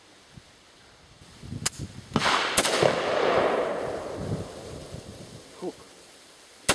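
Semi-automatic rifle shots from a Radom Sport Beryl: a couple of sharp cracks about two seconds in, then a single louder shot near the end. Each shot leaves a long rolling echo.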